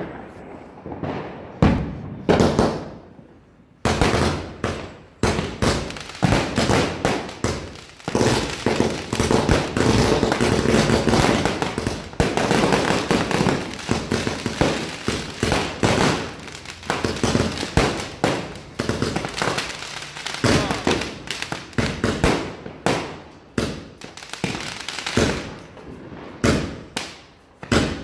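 Vadivel 100-shot aerial firework cake firing: a long, rapid run of launch thumps and bursting reports, several a second. A couple of shots come about two seconds in, the barrage runs thick from about four seconds, and the shots thin out near the end.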